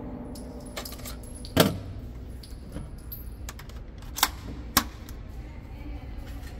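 Metallic clicks and clacks of a lightweight AR-15 rifle being handled, its controls and magazine worked. Three sharper clacks stand out, about one and a half, four and nearly five seconds in.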